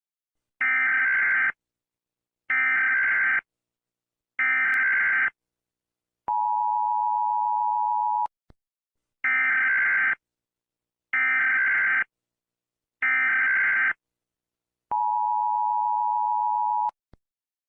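Emergency Alert System signalling tones: three roughly one-second bursts of digital SAME data tones, then a two-second two-tone attention signal. The whole sequence of three data bursts and a two-tone signal then repeats.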